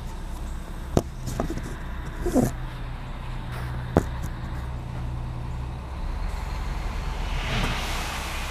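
Dump truck's diesel engine running steadily in a low hum, with two sharp knocks about three seconds apart and a brief higher-pitched sound between them. Near the end, a louder rushing noise swells up.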